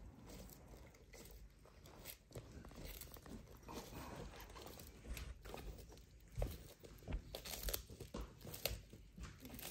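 Sulcata tortoise eating, biting and crunching its food in an irregular run of crisp crunches that grow louder and sharper in the second half.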